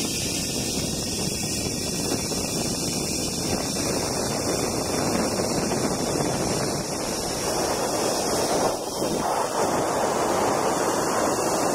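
Steady rushing wind noise on the microphone, with a brief dip about nine seconds in.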